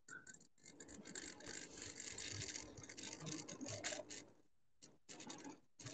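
Faint road and engine noise inside a moving car's cabin, a low hiss and rumble with small clicks and rattles, dropping out almost to nothing for a moment about four seconds in.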